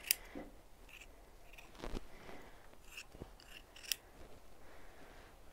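Scissors snipping through a sheep's-wool mulch mat: several short, separate cuts, the loudest about two seconds in.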